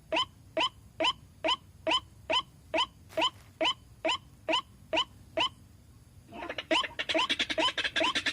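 White-breasted waterhen calling: a steady series of short, identical notes, about two a second. About six seconds in, a louder, denser chorus of overlapping calls takes over, several birds calling over one another.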